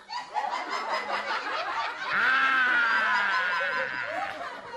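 A man's comic falsetto shriek: from about two seconds in, one long, high, wavering cry that slowly falls in pitch, after some shorter squeals. Scattered studio-audience laughter runs underneath.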